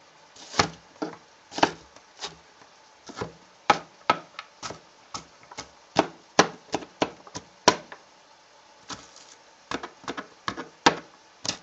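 Chef's knife chopping an onion on a cutting board: a run of sharp, irregular knocks of the blade hitting the board, about two a second, with a brief pause about two-thirds of the way through.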